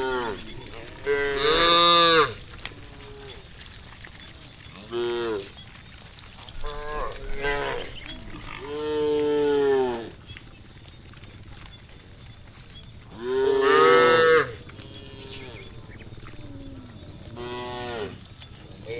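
Cows mooing again and again: about eight calls, some short and some long and drawn out, the loudest ones about two seconds in and a little past the middle, over a steady high hiss.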